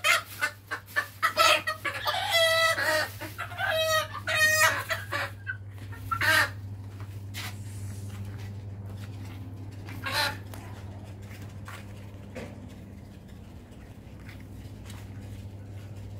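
Domestic chicken squawking and clucking in a rapid, loud run of calls as it is handled, dying down after about five seconds, with one more call about ten seconds in.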